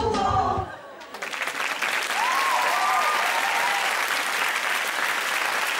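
A choir's singing cuts off in the first second, and after a brief lull a studio audience breaks into sustained applause, with a voice briefly rising over it about two seconds in.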